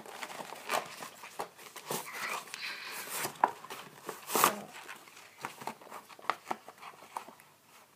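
Action-figure packaging being torn open and handled: irregular crinkling, rustling and small sharp snaps of cardboard and plastic, louder snaps about a second in and around three and a half and four and a half seconds in.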